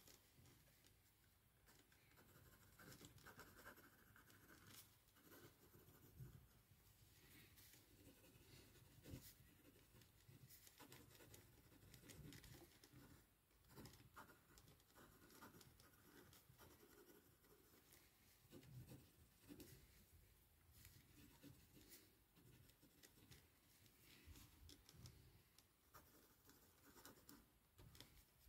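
Faint scratching of handwriting on paper, in short irregular strokes with occasional small taps.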